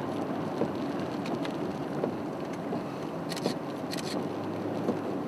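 Steady road and engine noise inside a car's cabin while driving, with a couple of short sharp ticks about three and a half and four seconds in.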